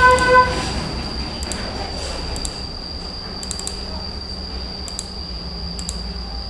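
Light, sharp taps on a smartphone's touchscreen keyboard, scattered at irregular intervals, over a steady low hum and a thin high whine. A brief pitched tone sounds at the very start.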